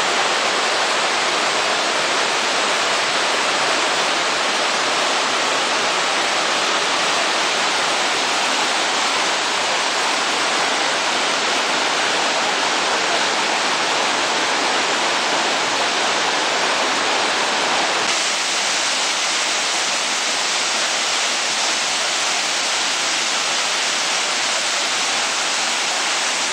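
A river in spate pouring through rapids and over a waterfall: a loud, steady rush of white water that shifts slightly in tone about two-thirds of the way through.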